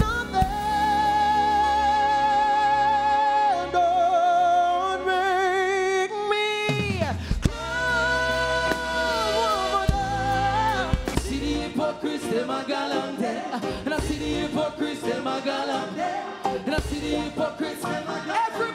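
A man singing long, held notes with a wide vibrato into a microphone, backed by a live band. About eleven seconds in this gives way to busier live band music with singing.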